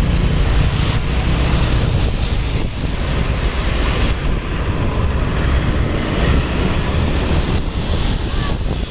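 Wind buffeting the microphone over road traffic noise: a steady, deep rushing with no horn or voices.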